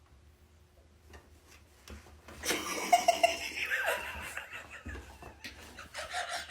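A person laughing, starting about two and a half seconds in with a few short bursts and coming back near the end.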